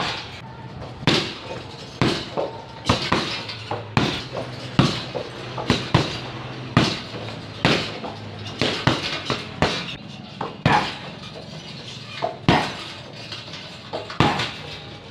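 Knees and kicks slapping into a hanging leather teardrop heavy bag, a sharp smack about once a second, with a few lighter hits between.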